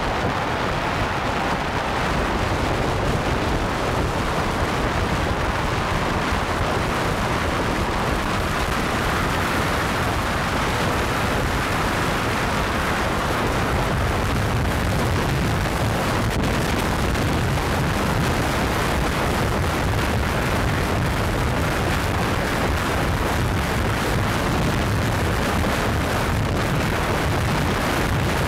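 Wind buffeting the microphone of a camera on a moving jeep, with the jeep's running noise underneath: a steady, loud rush and rumble.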